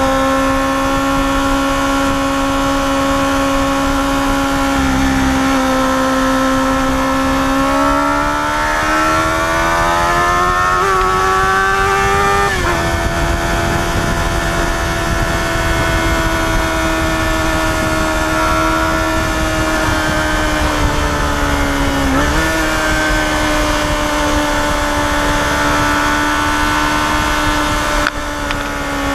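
Yamaha FZR250R's inline four-cylinder engine running steadily under way, with wind rushing past. Its pitch climbs for a few seconds as it accelerates, then drops abruptly about twelve seconds in, as at an upshift. Around twenty-two seconds in it dips and jumps back up.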